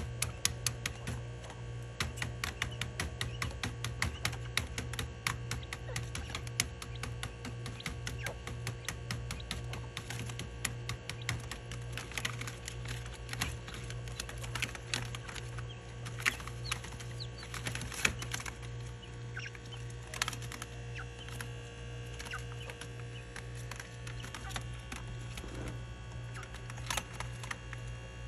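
Caged quail making rapid, irregular clicking and ticking sounds, several a second, over a steady low hum.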